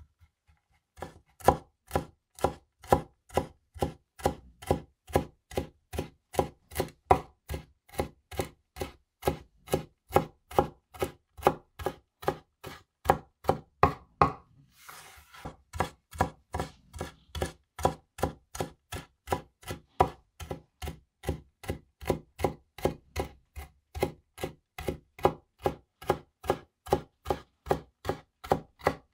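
Stainless steel vegetable cleaver (Winco KC-401) chopping finely shredded greens on a wooden cutting board: a steady run of sharp knocks of the blade on the board, about three a second. About halfway through, the chopping breaks off briefly for a short scraping sound.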